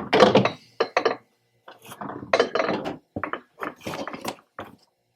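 Beer cans being handled and slid into a mini fridge's slotted can rack: an irregular run of knocks, clicks and rattles.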